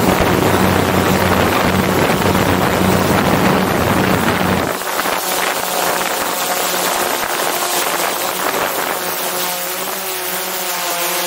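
Quadcopter drone's electric motors and propellers buzzing close overhead. A broad rushing noise covers the first half and drops away about five seconds in; after that the pitch of the motor drone wavers up and down as the rotor speeds change.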